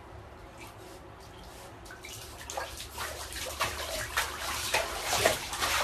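Bathtub water splashing and sloshing as a Shiba Inu moves about in it, starting about two seconds in and getting louder toward the end, over a faint steady low hum.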